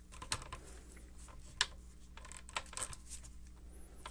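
A few faint, irregular clicks and clinks of a socket ratchet being handled and fitted onto the nut of a belt sander's drive pulley.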